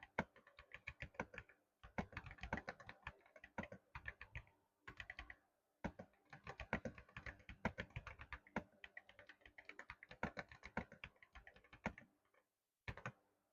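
Typing on a keyboard fitted with MOA-profile keycaps: quick runs of clacking keystrokes broken by brief pauses, with a last few strokes near the end.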